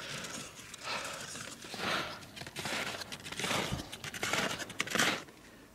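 Footsteps crunching in snow, with hard breathing, in swells about once a second.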